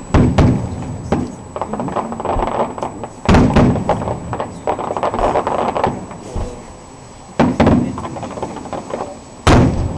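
Firework shells bursting overhead: a series of loud bangs, the strongest near the start, about three seconds in, past seven seconds and near the end. Each is followed by a rumbling echo and crackle.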